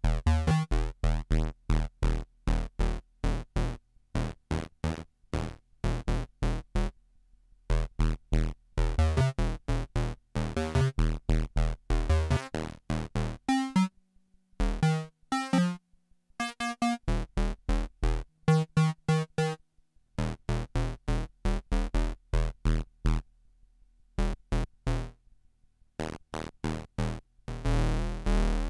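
Korg ARP Odyssey analogue synthesizer playing short, plucky staccato notes in a quick rhythmic pattern, with a few brief pauses and some notes sliding quickly in pitch about halfway through. The sound is dry, taken straight from the synth's headphone output.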